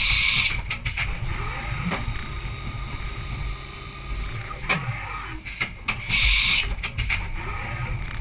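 Haas Super Mini Mill 2 CNC mill running its program, its end mill cutting aluminium under flood coolant. The mechanical running is steady, with many short clicks and a few brief rising and falling whines. A loud hissing burst comes at the start and again about six seconds later.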